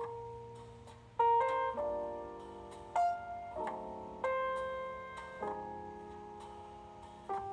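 Background music: solo jazz piano playing slow, sustained chords and single notes.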